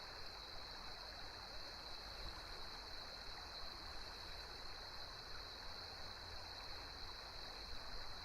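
Noise-masking sound from a Bose Sleepbuds earbud at full volume, heard through its tiny speaker: a steady rushing like running water.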